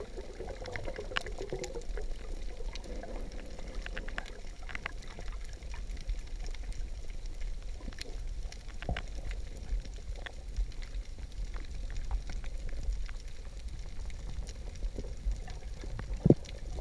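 Underwater ambience on a scuba dive: bubbles from a diver's exhalations gurgling over a steady low rumble, strongest at the start, with scattered sharp clicks throughout and a louder knock near the end.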